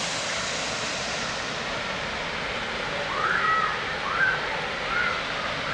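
Water pouring over a small dam waterfall, a steady rushing hiss. About halfway through, a few short high calls rise and fall over it.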